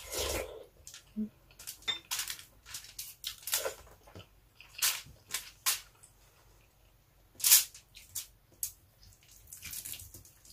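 Close-miked eating sounds: wet chewing and mouth smacks in short, irregular clicks, with fingers picking rice off aluminium foil.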